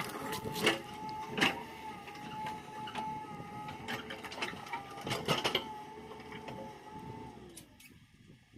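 A machine's steady whine with scattered sharp clicks and knocks; the whine fades out near the end.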